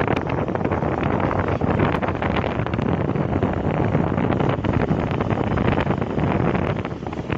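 Hero Xtreme 160R single-cylinder motorcycle riding along at a steady pace, its engine running under heavy wind buffeting on the microphone.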